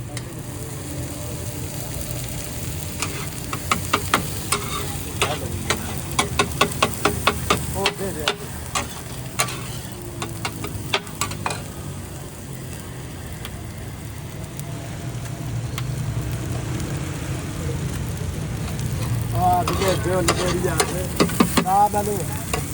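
Daal anda tikki frying with a steady sizzle, over two runs of quick, sharp clacks of a cooking utensil against the pan, one through the first half and a shorter one near the end.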